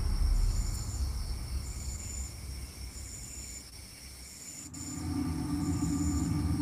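Night insects: a high-pitched buzzing chirp about half a second long, repeating roughly every second and a quarter, over a steady high trill. A low rumble runs underneath, fading in the middle and rising again near the end.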